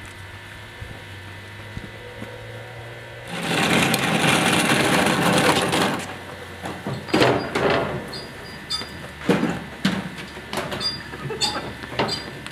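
A loud rattling roll of small plastic wheels on pavement for about three seconds, then a run of scattered thumps and knocks with quick footsteps as furniture and boxes are hurried into a moving truck.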